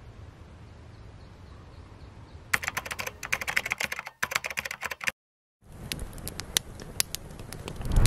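Typing sound effect of rapid keystroke clicks, starting about two and a half seconds in after a steady low outdoor background. It breaks off for half a second just after five seconds, then resumes with sparser keystrokes under a low swell that builds to the loudest point at the end.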